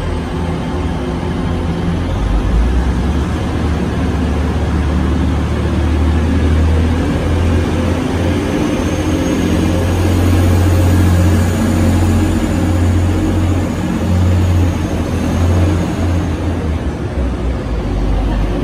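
A Class 185 diesel multiple unit pulling away, its underfloor Cummins diesel engines running under power with a deep, steady drone as the train accelerates past. A faint high whine rises midway.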